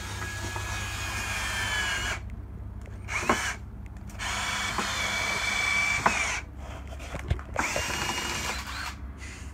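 Cordless drill driving screws into wooden lumber in about four runs. Each run spins up to a steady whine and stops, with short pauses between.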